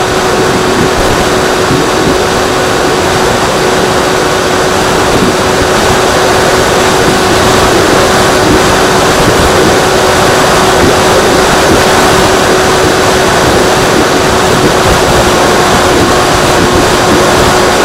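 Freewing Seagull RC plane's electric motor and propeller running at a steady speed, a constant hum under heavy wind rush on an on-board microphone.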